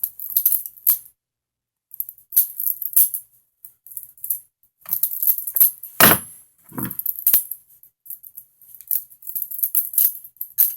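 Butterfly knife (balisong) being flipped through a Zen rollover: its metal handles and blade clicking and rattling against each other in quick, irregular clusters, with a louder knock about six seconds in.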